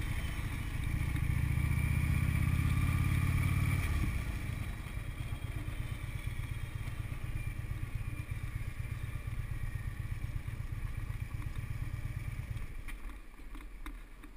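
Motorcycle engine running as the bike rides along, heard from a camera mounted on the bike. The engine note is strongest for the first few seconds, eases off about four seconds in, and drops away again near the end.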